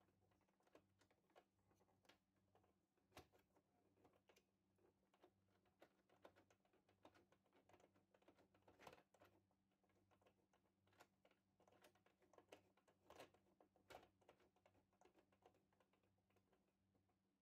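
Near silence: faint, irregular small clicks over a low, steady hum.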